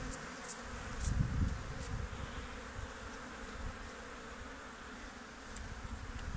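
Swarm of honeybees buzzing steadily around an opened hive while a bee brush sweeps them off a honey frame, with a few short scratchy brush strokes in the first second. Low handling rumbles are loudest about a second in.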